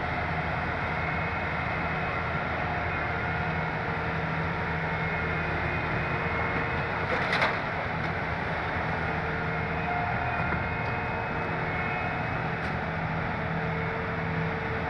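Heavy diesel machinery, a demolition excavator, running steadily with an even engine drone, with one short sharp crack about halfway through.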